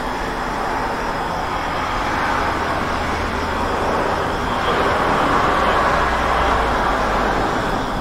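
Road traffic noise: a steady wash of cars and other vehicles on a road, with a louder swell from about halfway through as a vehicle passes closer.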